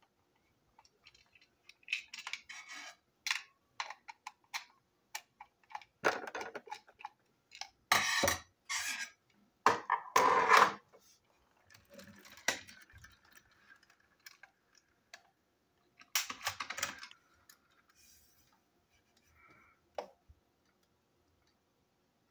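Plastic toy train parts handled and fitted back together on a hard tabletop: a string of irregular clicks, knocks and rattles, loudest about six to eleven seconds in and again around sixteen seconds.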